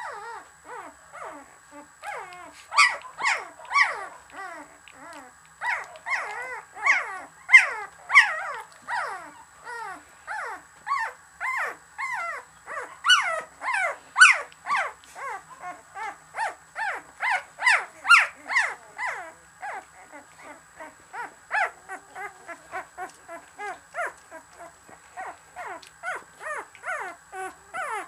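Newborn Samoyed puppies, 13 days old, whimpering and squeaking in a litter pile: a continuous run of short, high whines, several a second and sometimes overlapping, many sliding down in pitch.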